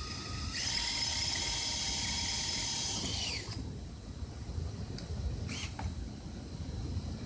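Cordless drill boring through an aluminum plate: the motor's whine rises to a higher, louder speed about half a second in, runs steadily for about three seconds, then winds down and stops.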